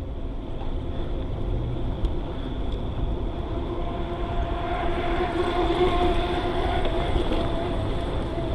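Riding noise of a bicycle on a paved trail, picked up by an action camera: low wind rumble on the microphone and tyre noise, with a faint wavering hum that swells about two thirds of the way through.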